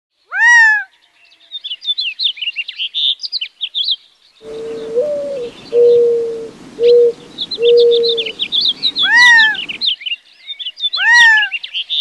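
A mix of desert bird calls: quick high chirping, and a loud call that slides downward in pitch, heard three times (near the start, about nine seconds in and about eleven seconds in). In the middle a dove coos four low notes, the first one stepping up in pitch.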